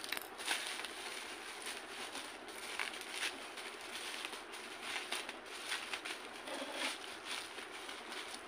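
Plastic bubble wrap crinkling and rustling as it is cut with scissors and then pulled open by hand, in a run of irregular crackles.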